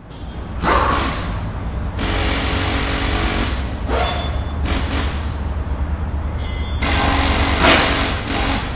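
Channel-intro sound design: a steady low rumble with several whooshing sweeps as animated titles fly in.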